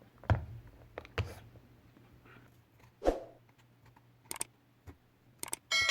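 Small hand tools tapping and knocking on a smartphone as its heated back cover is pried open, a handful of separate clicks a second or so apart. Near the end a metal tool strikes a hard surface with a clang that rings on.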